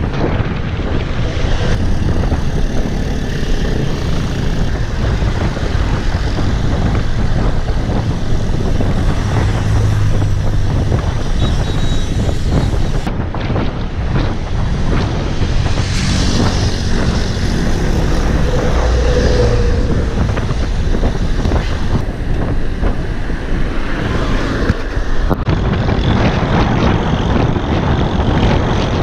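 Loud, steady wind roar buffeting the action camera's microphone on a road bike ridden at speed into a strong headwind.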